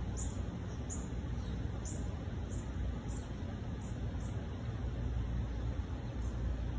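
Wind rumbling on the microphone, with short, high, falling chirps repeating about every half second over the first few seconds, then growing fainter.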